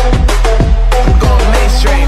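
Instrumental stretch of a rap track: a heavy sustained bass under drum hits about four a second and short synth notes, with a high sweep near the end.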